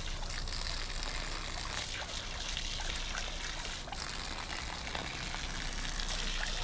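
Water running steadily from a garden hose and splashing onto grass, with a boxer dog drinking from the stream.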